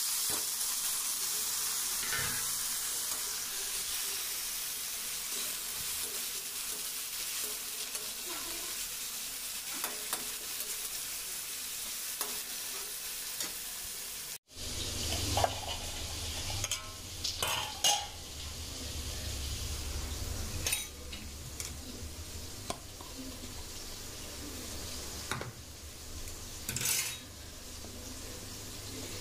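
Chopped tomatoes and onions sizzling in oil in a steel kadhai, stirred and scraped with a metal slotted spatula. After a short break about halfway, the sizzling goes on with a low rumble and several sharp clinks of metal on metal.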